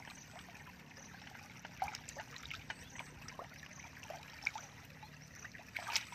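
Bare feet wading through shallow muddy water, with scattered small sloshes and drips and a larger splash near the end.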